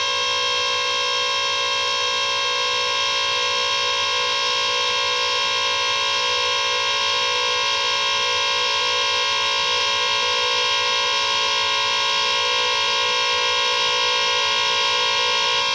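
Harsh noise / ambient noise music: a loud, unchanging electronic drone of many held tones stacked over a bed of hiss.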